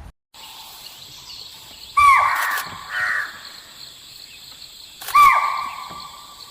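An animal calling twice, about three seconds apart, each call sliding down in pitch, with a fainter call after the first, over a steady outdoor background hiss.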